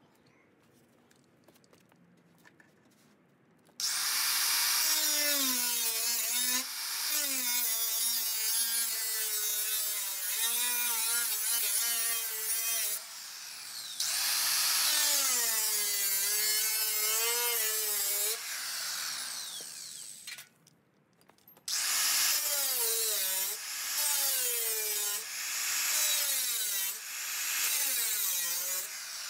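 Corded electric angle grinder cutting into the steel front fender at the wheel arch. Its motor whine sags and recovers in pitch as the disc bites under load. It starts about four seconds in, stops briefly around twenty seconds, and then runs again.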